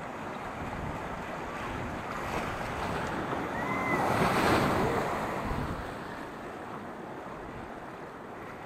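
Rushing white water of a river rapid against the side of an open boat. It swells to its loudest about four to five seconds in as the boat runs past a breaking standing wave, then eases.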